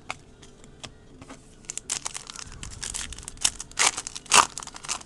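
Foil trading-card pack wrapper being torn open and crinkled by hand. Scattered crackles at first grow into a dense run about a second and a half in, with the loudest rips near the end.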